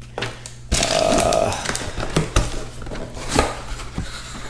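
Cardboard packaging being handled: the helmet box and its inner insert rustling, scraping and knocking, with a string of sharp taps. The loudest stretch is a scrape starting just under a second in.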